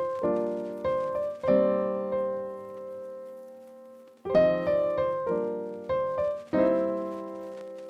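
Piano music: chords struck one after another, each left to ring and fade, with one chord held for nearly three seconds in the middle.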